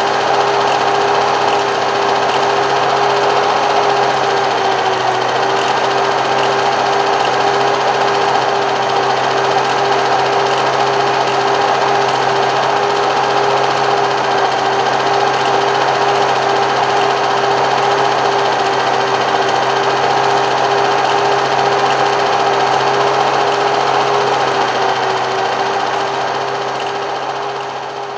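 Film projector running: a steady mechanical whir with a constant hum, unchanged through the picture cuts, fading out near the end.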